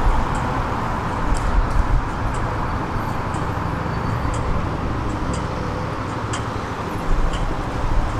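City street traffic: a steady rumble of passing cars, with a few faint clicks scattered through it.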